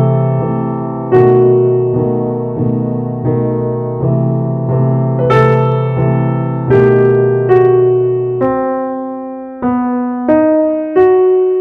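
Background piano music: slow, decaying chords over low bass notes, which drop out about eight and a half seconds in, leaving single melody notes.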